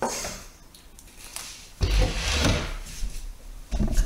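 A printed circuit board being handled and set down on a table: rubbing and scraping noises, loudest about two seconds in, with another short knock near the end.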